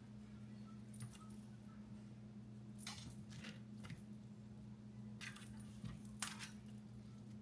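Spice containers shaken in several short rattling bursts as seasoning is sprinkled, over a steady low hum.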